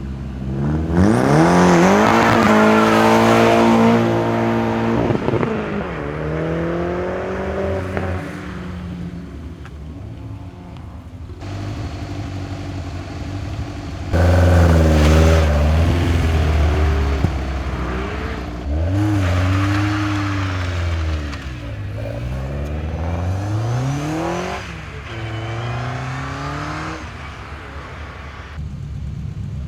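Hillclimb competition car engine accelerating hard, its pitch climbing and dropping back at each gear change. The loudest passages come about a second in and again about halfway through.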